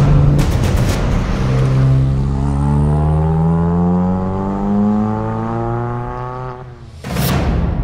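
Car engine accelerating hard, its note rising steadily for several seconds. About seven seconds in, a sudden loud rushing hit.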